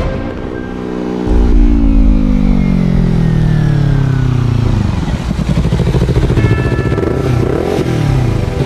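Motorcycle engine running, its pitch falling steadily over a few seconds, then rising and falling again near the end.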